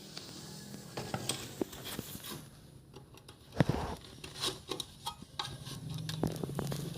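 Scattered clicks, taps and light clatter of small hard parts and tools being handled while motorcycle horn wiring is put together, with one sharper knock about three and a half seconds in.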